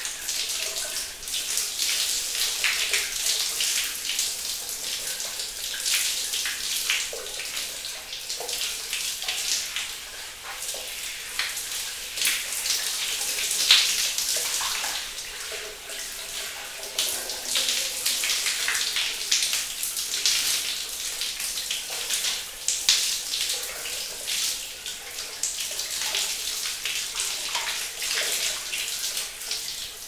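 Shower running: a steady hiss of spraying water with uneven splattering.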